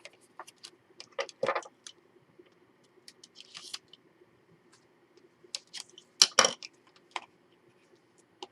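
Scattered taps, clicks and rustles of paper and chipboard pieces being handled and pressed down on a work surface, loudest as a quick pair of knocks about six seconds in.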